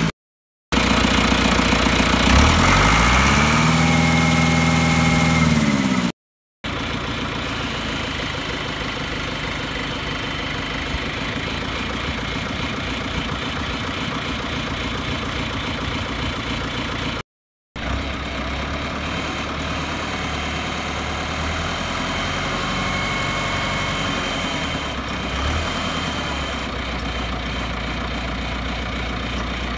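John Deere 2755 tractor's 4239T 3.9-litre four-cylinder turbo diesel running. It revs up, holds and drops back early on, then runs steadily, with brief abrupt cuts in the sound.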